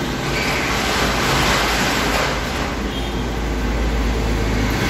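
Steady rushing background noise with a low hum, like an air conditioner or fan running. A brighter hiss swells over the first couple of seconds and then eases.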